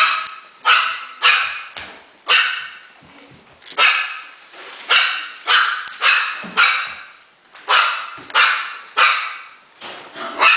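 Havanese puppies barking: a run of about a dozen high-pitched barks, spaced irregularly about half a second to a second apart.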